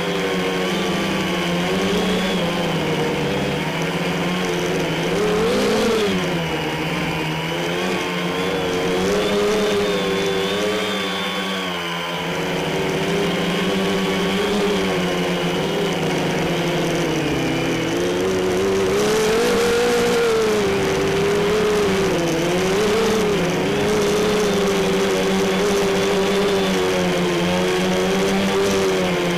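Quadcopter's electric motors and propellers whining steadily, the pitch rising and falling repeatedly, heard from a camera mounted on the frame.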